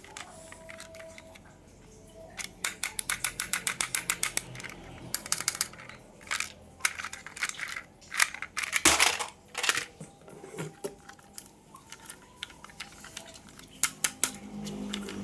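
Sharp clicks and taps from handling toys and their packaging. A fast even run of about ten clicks a second starts about two and a half seconds in and lasts about three seconds. A brief rustling scrape comes near the middle, then scattered taps.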